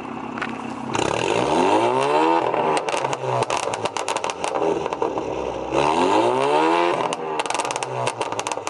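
Alfa Romeo Giulia's tuned four-cylinder engine revved hard twice through a loud exhaust, the pitch climbing each time. As the revs drop after each one, the exhaust lets off a rapid run of pops and crackles from the ProjectA tune.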